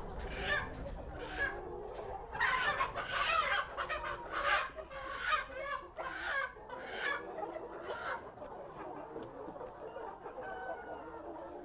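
Flock of chickens clucking, with a stretch of loud, dense squawking a few seconds in that thins out after about seven seconds. The squawking is the alarm of birds being caught and handled.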